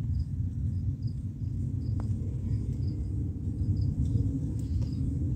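Massey Ferguson 265 tractor's diesel engine idling steadily, a low even rumble, with faint regular high chirps over it and a single small click about two seconds in.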